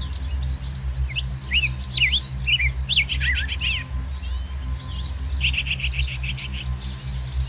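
Small birds chirping, with quick up-and-down calls and two fast trills, one about three seconds in and one about five and a half seconds in. Under them runs background music with a steady low bass.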